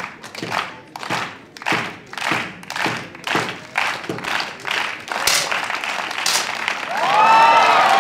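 Spectators clapping in unison, slightly under two claps a second, while the shooter aims his final shot. The clapping runs together, a single sharp crack from the 10 m air pistol comes about five seconds in, and near the end the crowd breaks into loud cheering and applause.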